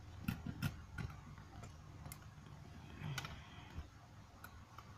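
Light, irregular clicks and taps of small circuit boards being handled and set against each other: a Raspberry Pi 2 held and moved over a LattePanda board.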